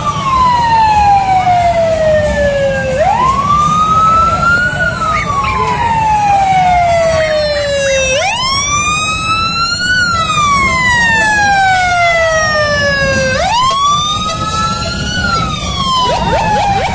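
Siren wailing in slow cycles, each rising quickly over about two seconds and then falling over about three, three times over, with a steady low rumble underneath.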